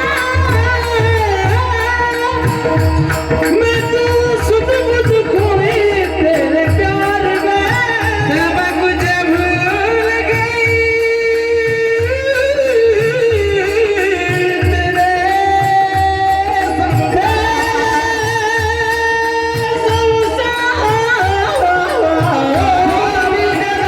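Indian devotional music: a sung melody over a steady drone, with repeated hand-drum strokes keeping the beat.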